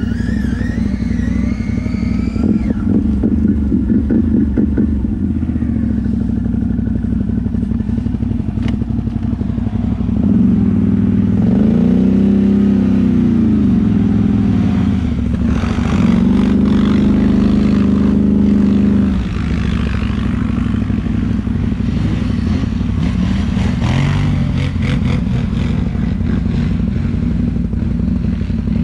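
ATV engine running, revving up and back down about ten seconds in, then held at high revs for about three seconds before dropping back to a lower, steady speed.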